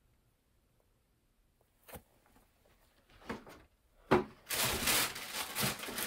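Sneakers and their packaging being handled: a light tap about two seconds in, a sharp knock about four seconds in, then a stretch of loud rustling and scraping.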